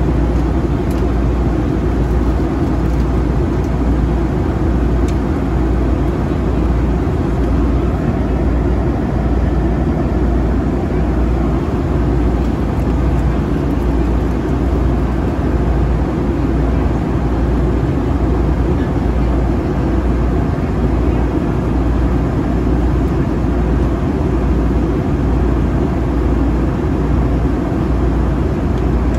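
Steady cabin noise inside a Boeing 757-300 in flight: an even rush of engine and airflow noise, strongest in the deep low end, unchanging throughout.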